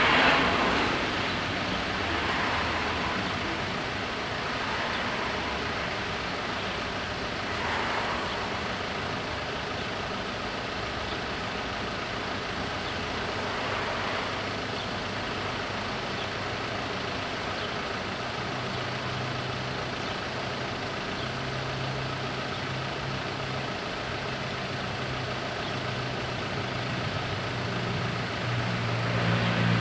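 Road traffic: cars and a van driving past one after another, each rising and fading. In the second half a steady low engine hum comes in and grows louder near the end.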